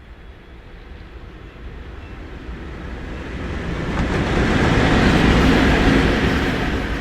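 Freight train hauled by a VL11 electric locomotive passing on the rails: a rumbling rail noise that grows steadily louder, peaks about five seconds in, and begins to fade near the end.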